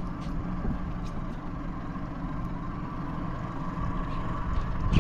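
Boat engine running at a steady low rumble with a faint hum, a few faint ticks over it.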